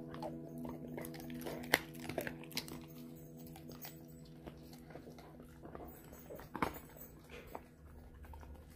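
Large dog chewing and crunching the last bits of a raw deer leg bone. There are scattered sharp cracks of bone, the loudest about two seconds in and another near seven seconds.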